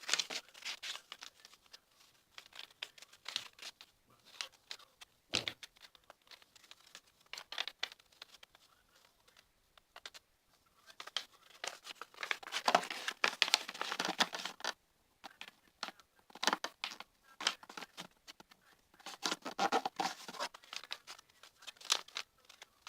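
A sheet of A4 paper being folded and creased by hand: irregular crinkling and rustling, loudest in two stretches, one about halfway through and one near the end, with a soft knock about five seconds in.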